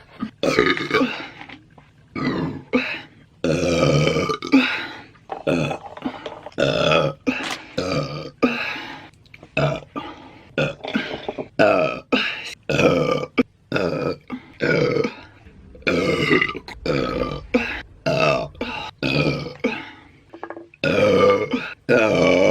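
A woman burping over and over in quick succession, a long run of loud pitched burps about one every half second to a second.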